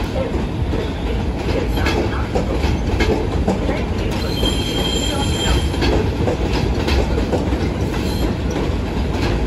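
R46 subway train rolling past on elevated track, its wheels clattering over the rail joints with a steady low rumble. A high-pitched wheel squeal rings for about a second and a half midway through.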